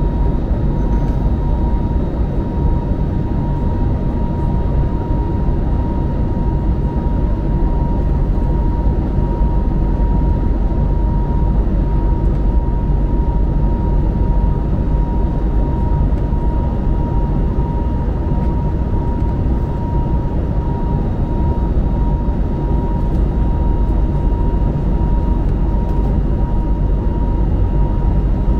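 Airbus A321neo cabin noise in flight: a steady, loud rush of airflow and engine noise, with a constant thin high tone running through it.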